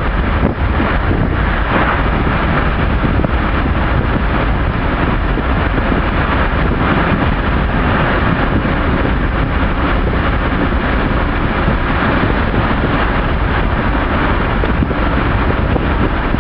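Steady road and wind noise from inside a moving car.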